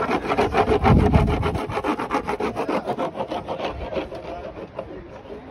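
A bar of surf wax rubbed quickly back and forth on a surfboard's deck. It makes a rapid, even scraping rhythm that fades out about four seconds in.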